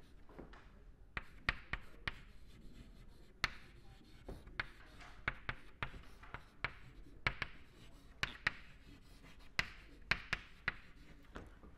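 Chalk writing on a chalkboard: a string of irregular sharp taps and short scratches as words are written out.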